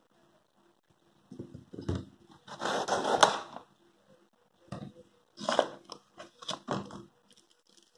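Packaging being handled: a clear plastic tray and a cardboard box crinkling and scraping. The sound comes in two bouts, a longer, louder stretch about two to three seconds in, then a run of shorter crinkles and scrapes.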